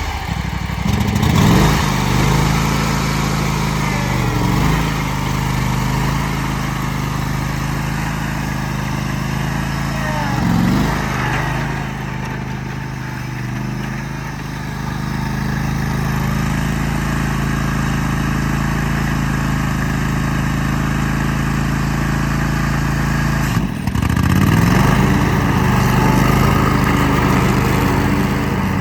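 John Deere X534 lawn tractor engine running steadily. Its pitch dips and comes back up a few times, with a sharper drop and recovery about three-quarters of the way through.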